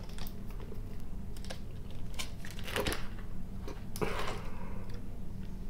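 Thin clear plastic packaging of a milk sherbet bar being pulled off and handled: scattered light clicks and crackles, with a denser crackle about four seconds in.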